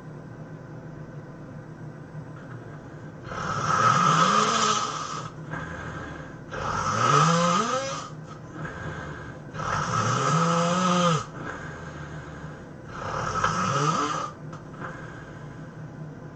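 A person snoring: four loud snores about three seconds apart, each rising in pitch as it goes.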